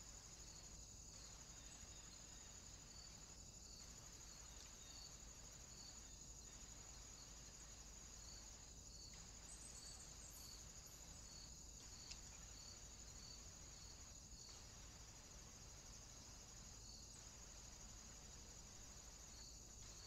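Near silence: a faint, steady, high-pitched insect chirring, crickets, over low hiss and hum, with one brief faint tick about twelve seconds in.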